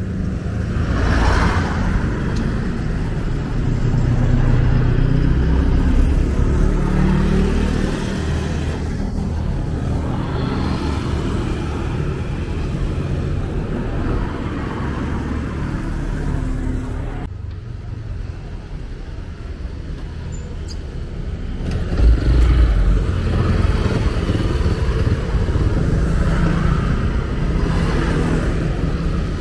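Street traffic: vehicle engines running and passing close by. A steady low rumble swells several times, loudest about 22 seconds in.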